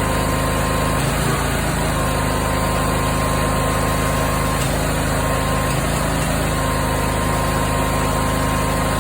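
Briggs & Stratton 20 HP V-twin engine running steadily, with a few irregular pops from the exhaust. The popping was traced to valve clearance out of adjustment.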